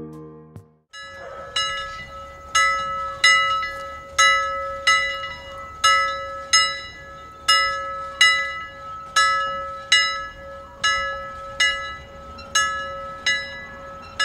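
Soft alarm bell ringing over and over, about three strikes every two seconds, each strike ringing on briefly over a steady held tone: the time-up signal of a countdown timer. Soft background music fades out just before the bell begins.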